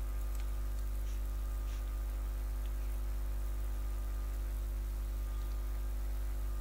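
Steady low electrical mains hum with a constant hiss. A few faint clicks come in the first few seconds.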